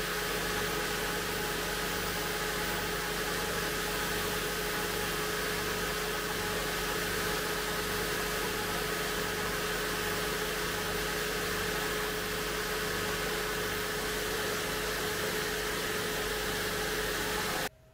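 Spindle sander running steadily, its sanding drum spinning against a pine workpiece held to it, a constant motor hum and whir; the sound cuts off abruptly near the end.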